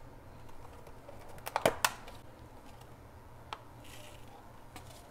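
Clear plastic clamshell herb container being handled and pried open: a quick run of sharp plastic clicks about a second and a half in, then one more click about two seconds later, over a faint low hum.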